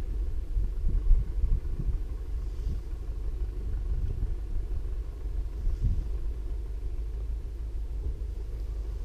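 A low, uneven rumble that runs throughout, with small bumps in loudness.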